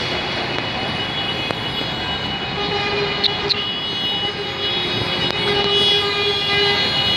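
A horn sounds one long steady note for about four seconds, starting a little before the middle, over a constant loud background rumble.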